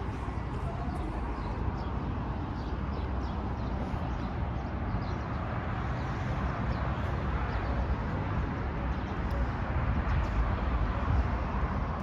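Steady outdoor background noise with a low rumble from wind and traffic on the road below, with a few faint high chirps.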